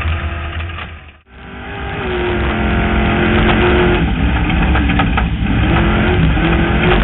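Off-road vehicle's engine running hard at speed, its pitch rising and falling with the throttle. The sound fades out about a second in and swells back up.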